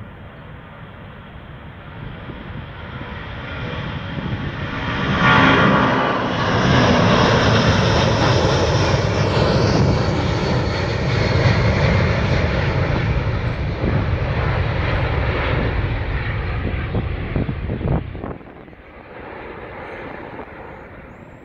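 The three Pratt & Whitney JT9D-59A turbofans of a McDonnell Douglas DC-10-40 running at takeoff power as the jet lifts off and climbs past. The loud jet noise builds over the first few seconds, holds for about twelve seconds with a faint high whine in it, then drops suddenly near the end as the plane climbs away.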